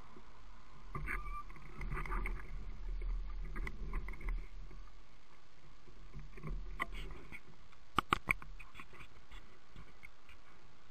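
Steady hiss from a small camera's built-in microphone with scattered knocks and rustles of handling. About eight seconds in come three sharp clicks in quick succession.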